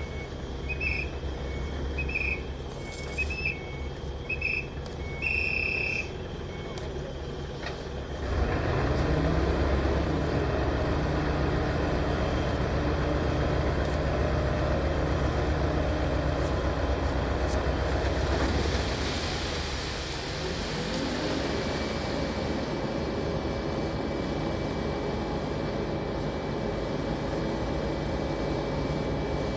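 Heavy diesel machinery. A reversing alarm beeps repeatedly for about the first six seconds. About eight seconds in, a diesel engine runs up loudly and holds steady, with a burst of air hissing a little before halfway and the engine pitch rising again soon after.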